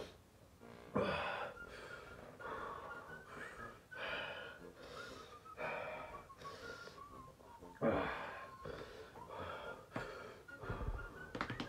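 A man breathing hard in short, wheezy gasps, about one breath a second, from the burn of Carolina reaper chili gummy bears.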